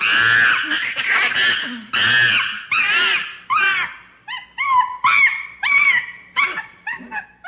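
Gibbon calling: long whooping notes that rise and fall in pitch, giving way about halfway through to shorter notes coming faster, and stopping just before the end.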